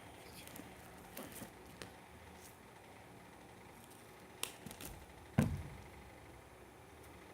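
Quiet handling of double-sided tape on a foam sponge: a few soft rustles and clicks, a sharp tick about four and a half seconds in, and a dull thump about a second later, the loudest sound.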